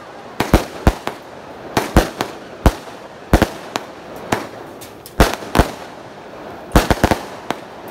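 Aerial fireworks bursting overhead: a rapid, uneven series of sharp bangs, about two a second, some in quick pairs and triples.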